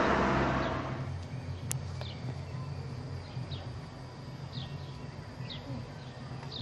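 A bird chirping: short, high, falling chirps about once a second over a steady low hum of outdoor background noise.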